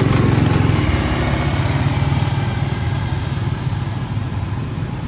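A small engine running steadily, a low pulsing hum that eases off slightly in the last second or two.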